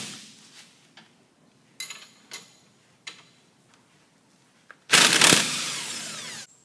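Tool work on the 15 mm lower ball joint bolt of a Polaris RZR 1000's front suspension: a few light metal clicks, then about five seconds in a loud, noisy run of a tool lasting about a second and a half, fading as it goes.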